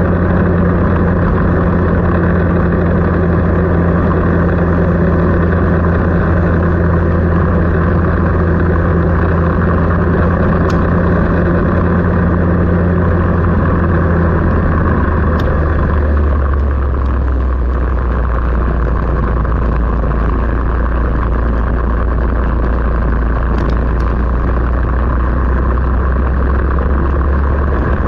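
A motor vehicle engine running steadily with a low drone. About sixteen seconds in, its pitch drops a step and then holds.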